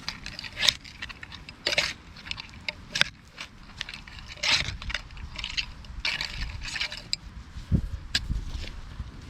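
Hands and garden fork working through soft soil to lift potatoes: irregular scraping and rustling of earth and plant stems, with a couple of dull thuds near the end.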